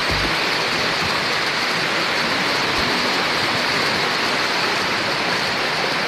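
Steady rushing of water as the stream at the top of Nohkalikai Falls pours over its rock channels toward the drop.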